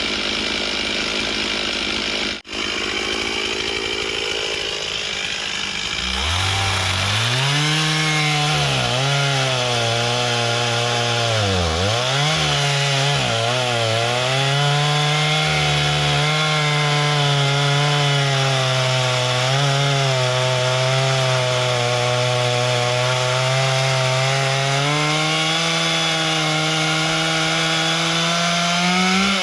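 Chainsaw cutting through a hardwood log. Its engine pitch dips as the chain bites and bogs under load, then holds steady through the cut and climbs near the end as the saw comes free.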